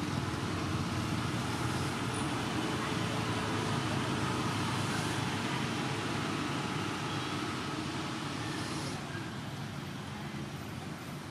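Steady low rumble of motor traffic, easing off slightly near the end.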